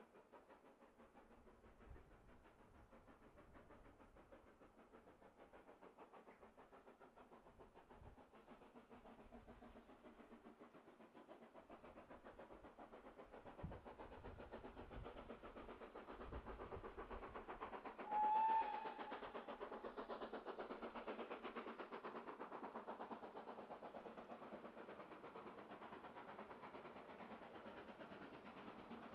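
A steam locomotive working, its rapid rhythmic beat growing louder from about halfway through, with one short whistle note a little over halfway through.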